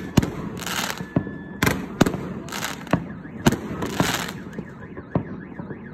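Aerial fireworks going off: a string of sharp bangs, about two a second, mixed with crackling bursts as the shells break into showers of sparks.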